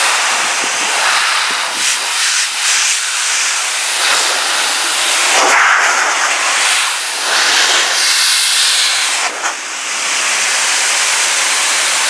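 Shelandy car and motorcycle blower dryer blowing a steady, loud rushing hiss of air from its hose nozzle onto wet car glass to blow the water off. The rush swells and eases a little, with a brief dip about nine seconds in.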